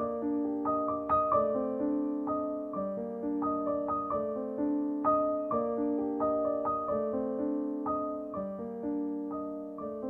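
Background piano music: a melody of struck notes over held chords, each note fading after it sounds.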